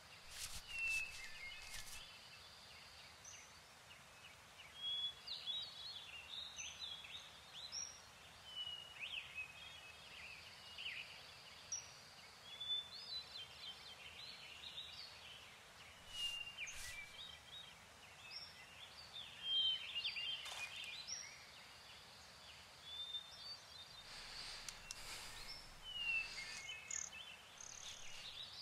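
Faint woodland birdsong: many short, high chirps and quick whistled glides from several birds throughout, with a few brief rustles, as of dry leaves, now and then.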